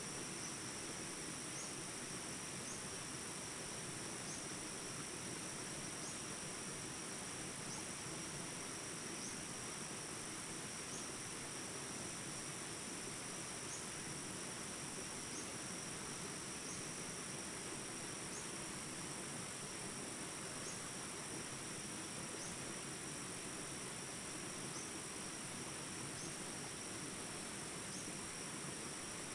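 Jungle ambience recording: the steady rush of small rapids under a continuous high insect drone, with a short chirp repeating about every second and a half.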